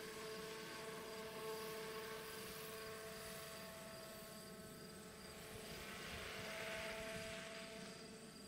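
Electric 700-size radio-controlled scale helicopter in flight: a steady whine of its Egodrift 4035HT motor and rotor, growing louder for a second or two near the end.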